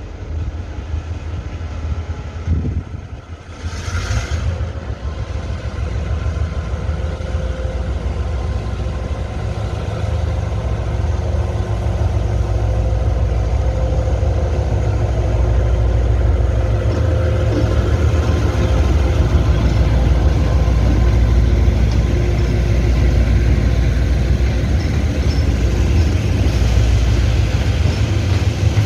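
Diesel-electric freight locomotive pulling a freight train out of the station under power, its engine a deep steady rumble that grows louder as it draws near and then holds. A short hiss about four seconds in.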